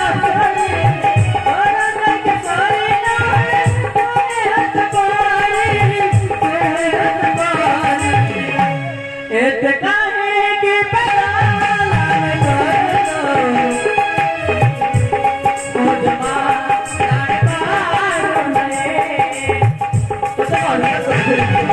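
Music: a song with a singing voice over drum beats and a steady held note, with a short break in the melody about nine seconds in.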